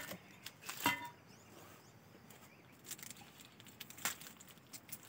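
A few short crinkles and clicks from a plastic biscuit wrapper and plastic bag being handled: one at the start, one about a second in, and one about four seconds in.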